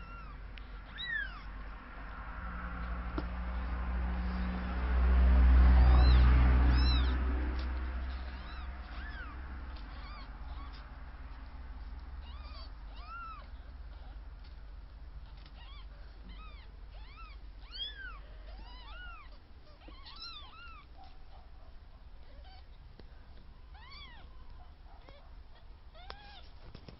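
Four-day-old newborn kittens mewing: many short, thin squeaks that rise and fall in pitch, scattered throughout. A low rumble swells up and fades between about four and eight seconds in.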